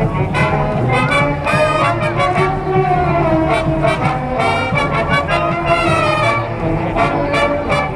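Brass band of trumpets and trombones playing an upbeat tune over a steady drum beat.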